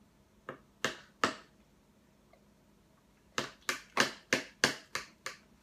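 A baby banging a plastic spoon on a plastic high-chair tray: three sharp knocks, then after a pause a quicker run of about seven knocks near the end.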